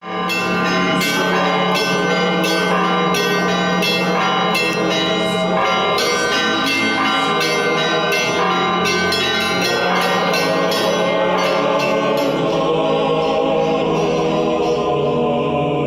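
Church bells ringing in many quick, overlapping strikes over a low steady drone, as theme music; the strikes thin out near the end.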